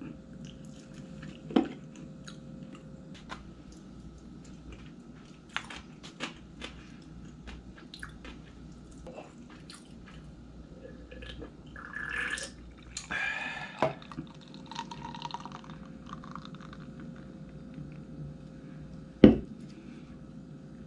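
Eating in a small room: soft chewing and small clicks of chopsticks on a plastic bento tray, then about two seconds of beer poured from a can into a glass, fizzing. A single sharp knock near the end.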